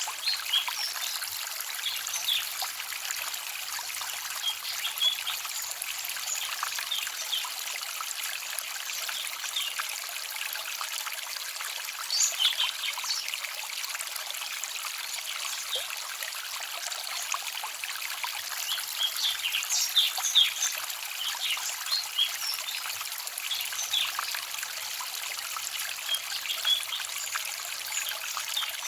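Small forest stream trickling and babbling over stones, a steady rush of water. Short bright high-pitched flickers come and go on top of it, bunching up about twelve and twenty seconds in.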